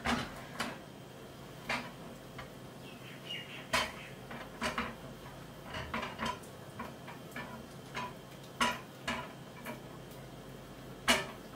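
Spatula knocking and scraping against a small stainless steel saucepan while stirring melting chocolate sauce on the stove, with irregular light clicks every second or so.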